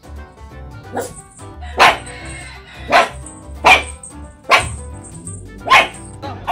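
A small puppy barking, about six short sharp barks spaced roughly a second apart, over background music.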